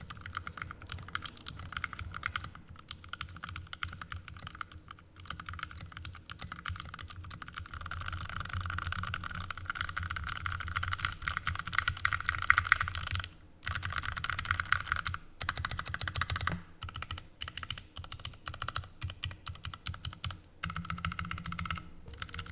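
Typing on a custom 65% mechanical keyboard with Krytox 205g0-lubed Tealio V2 linear switches, an aluminium case and plate, and PBT keycaps. The keystrokes run in a steady stream, get denser and faster in the middle, and break off for a few short pauses.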